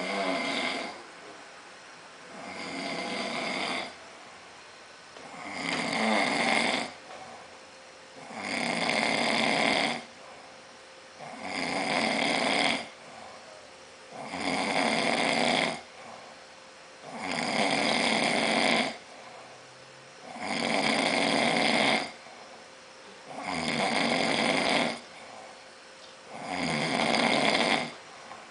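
A man snoring loudly in a steady rhythm, about ten snores, one roughly every three seconds. Each snore swells and then stops sharply.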